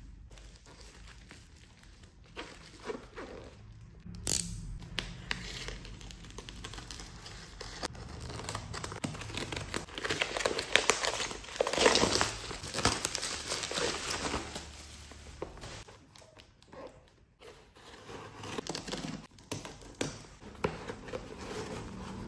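Black plastic wrapping being torn and peeled off a cardboard parcel by hand, crinkling and tearing irregularly, loudest around the middle. A sharp click about four seconds in.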